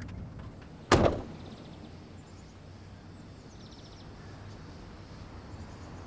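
A car door slammed shut about a second in, a single loud bang, followed by a steady, fainter outdoor background with a few faint high chirps.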